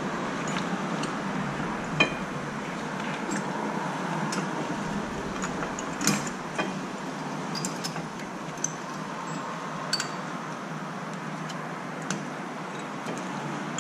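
Scattered light metallic clicks and taps, about half a dozen, as a brake pad and its metal clip are worked by hand into a rear disc-brake caliper bracket, over a steady background hum.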